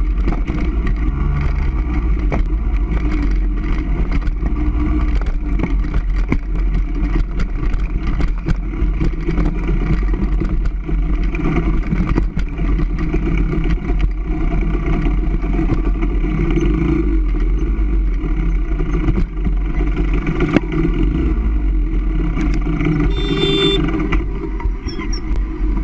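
Off-road engine of an enduro motorcycle or quad running steadily while riding a trail, with frequent knocks and clatter from the rough ground. A deep rumble of wind on the action camera's microphone runs underneath, and a brief high whine comes near the end.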